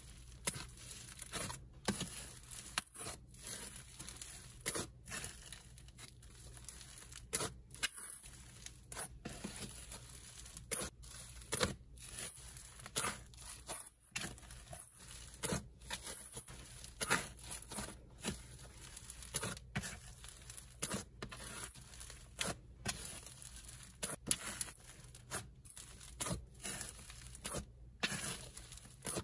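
Hands pressing, stretching and poking a thick, airy snow-fizz and cloud-cream slime, giving irregular bursts of soft, crunchy, sizzly crackling with each press.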